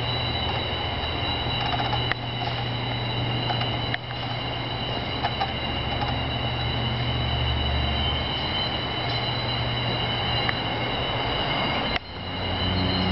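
Fire engine's diesel engine idling steadily: a low rumble with a steady high-pitched whine over it. The sound dips briefly about 12 seconds in.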